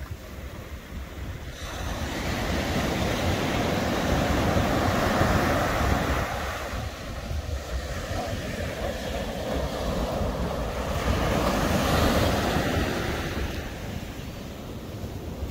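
Surf washing up a sandy beach, swelling twice as waves run in and draw back, over the low rumble of wind buffeting the microphone.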